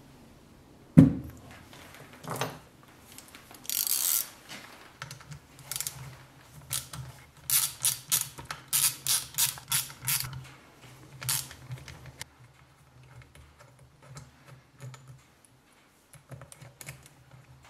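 A steering wheel set down on a workbench with a sharp knock about a second in, the loudest sound. Then a hand ratchet clicks in quick strokes, about three a second at its busiest, as the screws of the steering-wheel hub are turned.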